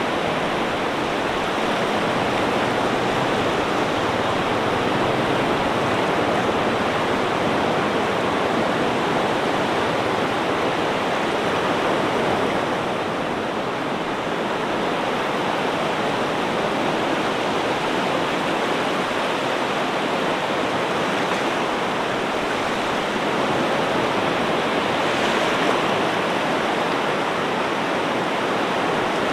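Ocean waves breaking in a steady, unbroken wash of surf, dipping slightly about halfway through and swelling again a little later.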